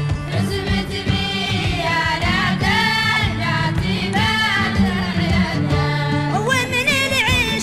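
Music with singing: sung voices over steady low bass notes.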